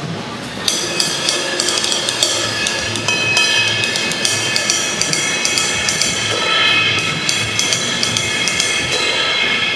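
Bronze cymbals struck with wooden drumsticks, chiefly the Turkish Cymbals 25th Anniversary ride: a run of quick stick strokes begins just under a second in and rings on in a lasting shimmer.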